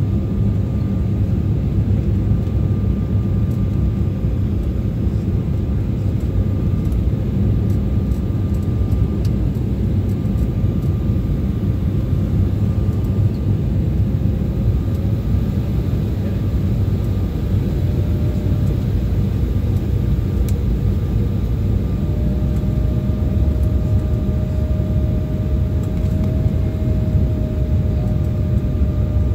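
Cabin noise inside an Embraer 175 jet on approach with flaps extended: a steady low roar of airflow and its GE CF34 turbofan engines. A faint whine runs through it and steps up a little in pitch about twenty seconds in.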